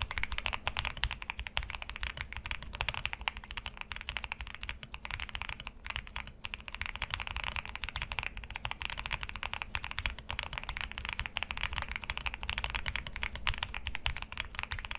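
Fast, continuous typing on a 75% mechanical keyboard, the key clacks running together, with brief pauses about six seconds in.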